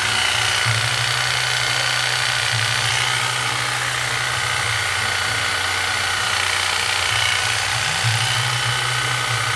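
A 320 W Makita electric hedge trimmer running on test, its motor and reciprocating blades making a steady buzz. The low hum shifts slightly in pitch a couple of times.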